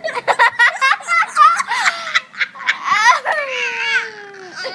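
A young child laughing hard in a giggling fit: rapid high-pitched giggles, then one long drawn-out falling note about three seconds in.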